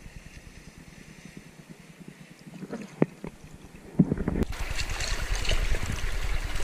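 Small waves lapping quietly for about four seconds, then louder uneven splashing and sloshing as a surfboard is paddled by hand through the water.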